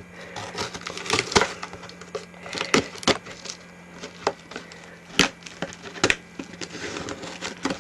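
A cardboard shipping box being opened and unpacked by hand: irregular sharp knocks and cracks from the box and packing, about seven of them spread over several seconds, with a faint steady hum underneath.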